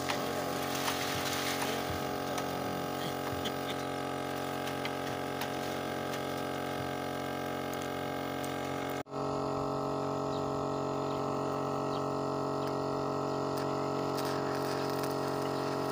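Air compressor running steadily, a continuous even-pitched motor hum, with a brief break about nine seconds in.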